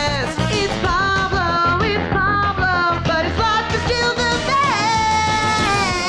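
Upbeat 90s-sitcom-style theme song: a sung melody of long held notes over a full band with a steady beat.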